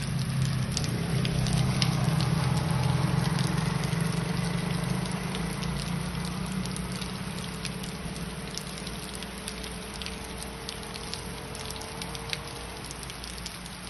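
Rain pattering in scattered drops, with motorcycle engines passing and slowly fading into the distance.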